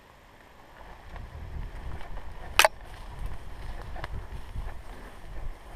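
Low rustling and handling noise from a helmet-mounted camera as the wearer moves through grass and brush, with one short, sharp crack about two and a half seconds in and a few faint clicks after it.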